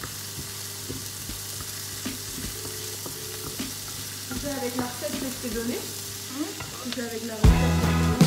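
Diced carrots and onions sizzling in a frying pan while a wooden spoon stirs and scrapes them around the pan. Music starts loudly near the end.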